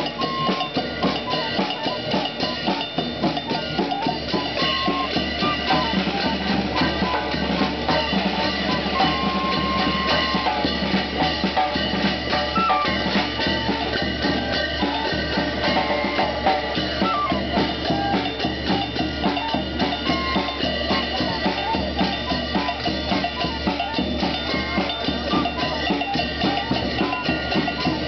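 A four-piece street band playing: a small wooden flute carrying the tune in short high notes over a steady, busy beat of snare drum, bass drum and clashed hand cymbals.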